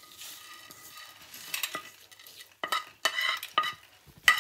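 A metal spoon scraping and pushing crisp fried split lentils across a paper towel on a plate, with dry rustling and scattered light clicks. Near the end the lentils are tipped off the paper into a dish with one sharp clatter.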